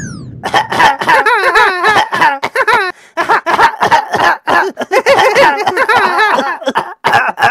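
High-pitched cartoonish puppet voices making rapid, choppy non-word sounds in short wavering bursts, without clear words. The tail of a magic-spell sound effect dies away at the very start.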